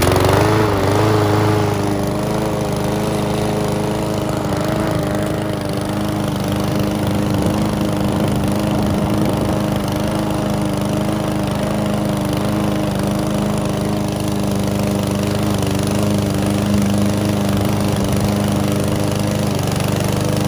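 PowerSmart 170cc single-cylinder gas lawn mower engine running at a steady speed while cutting grass, its note wavering briefly at the start before settling.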